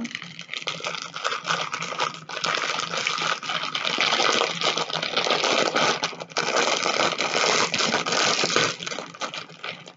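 Clear plastic packaging crinkling and rustling steadily as it is handled, a bag holding zip-lock packets of diamond-painting drills.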